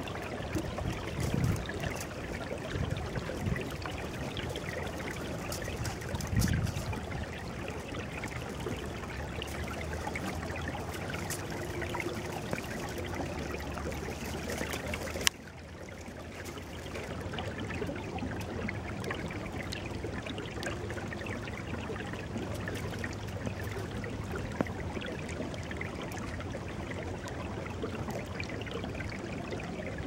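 A small river running in open water between ice and snow, with a steady trickling, rippling flow. About halfway through there is a sharp click, and the water sounds briefly quieter after it.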